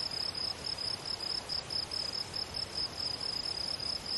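An insect stridulating in grassland, a high chirp repeated evenly about four times a second, over a faint background hiss.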